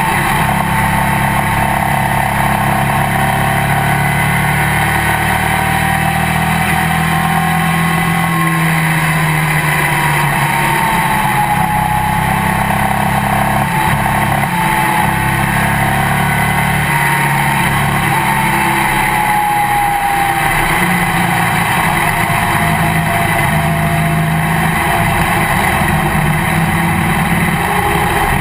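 Legends race car's motorcycle-based engine heard from inside the cockpit, running steadily at speed, with a high whine that drifts slowly lower midway through.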